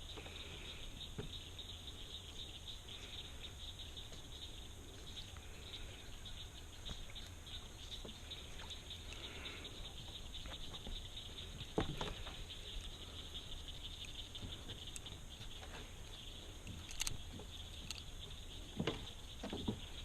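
Outdoor ambience by the water: a steady high chirring of insects and frogs over a low rumble, broken by a few soft clicks and knocks, one near the middle and two near the end.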